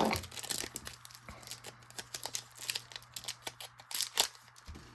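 Plastic wrapper of a hockey card pack crinkling and tearing as it is opened, a run of irregular crackles with a few louder snaps about four seconds in.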